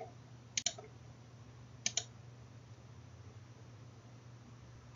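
Clicking at a computer: two pairs of short, sharp clicks about a second and a half apart, over a faint steady low hum.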